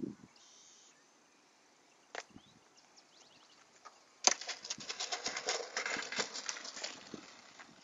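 EPO foam RC Cirrus SR-22 model plane touching down hard on an asphalt runway: a sudden impact about four seconds in, then a crackling scrape as it slides, fading out within about three seconds.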